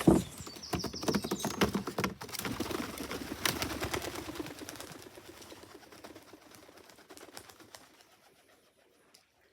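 Tippler pigeons' wings flapping and clapping in a flurry. It is loudest at the start and dies away over several seconds.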